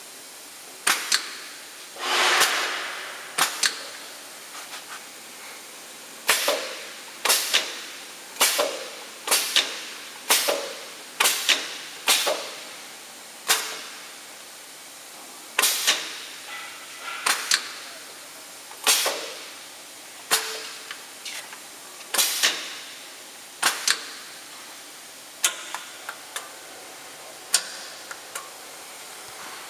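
Pneumatic cylinders on a CNC wood router switched by the panel's push buttons: a click and a short hiss of exhausting compressed air, about twenty times at roughly one-second intervals.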